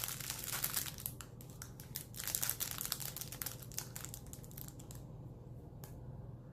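Packaging crinkling and rustling as the lighter is handled and taken out, a dense run of crackles that thins out after about five seconds, with one small click near the end.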